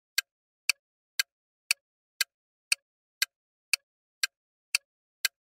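Countdown-timer sound effect: a clock-like tick repeating evenly at about two ticks a second.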